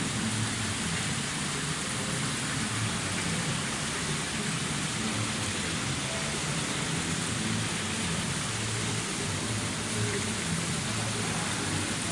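Fountain water splashing steadily: thin jets from stone lion statues falling into a shallow basin.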